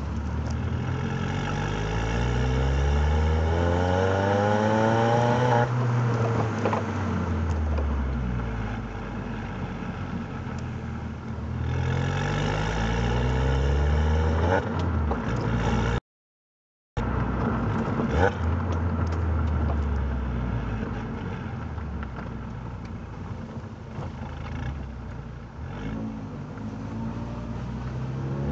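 Mini Cooper R56's 88 kW 1.6-litre four-cylinder, heard through an FSW full exhaust system from the catalytic converter back, from inside the open boot while driving. It revs up through a gear, eases off and runs steadily, then pulls again about twelve seconds in. The sound drops out for about a second midway, and another pull begins near the end.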